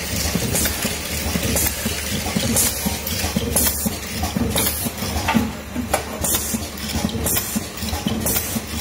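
Automatic screw-fitting machine running, its pneumatic cylinders hissing as they exhaust about once a second, over a steady mechanical hum and rattle as it steps along and drives screws into a brass neutral-link bar.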